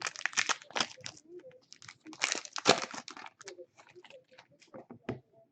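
Plastic trading-card packaging crinkling and tearing in a run of quick rustles, thinning out near the end.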